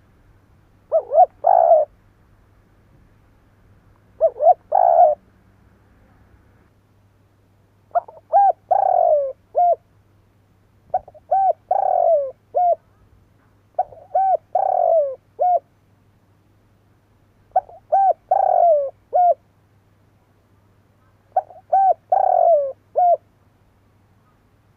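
Spotted dove cooing in seven phrases. The first two are short, and five longer phrases of several notes follow at roughly three-second intervals.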